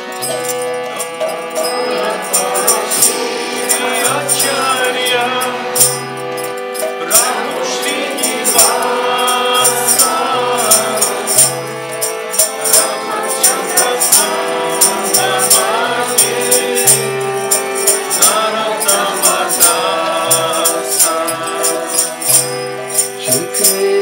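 Devotional bhajan: a harmonium holding sustained chords under singing voices, with small hand cymbals (karatalas) clashing in a steady rhythm.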